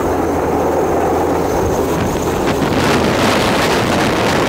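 Chinese Navy helicopter hovering low overhead: a steady rumbling rotor-and-engine noise, with wind buffeting the microphone in gusts from about halfway through.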